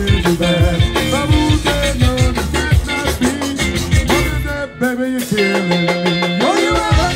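Live zydeco band playing: accordion, electric guitar and drums, with a man singing. About four and a half seconds in, the drums drop out for about two seconds while a held note carries on, then the full band comes back in near the end.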